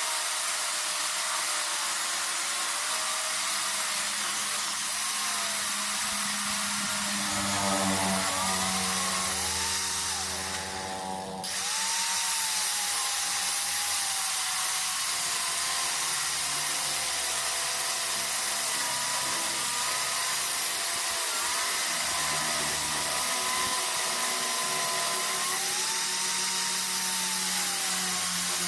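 Handheld electric power tool running continuously on metalwork, its motor pitch wavering with the load. It drops off briefly about ten seconds in, then picks up again.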